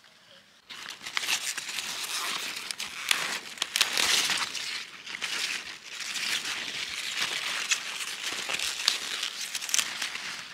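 Leafy greens rustling and crackling close to the microphone as they are handled and picked by hand, starting about a second in and going on continuously with many sharp crackles and snaps.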